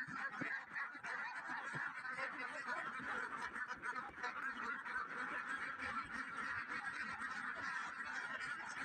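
A flock of many ducks quacking at once, a steady, dense chorus of overlapping calls.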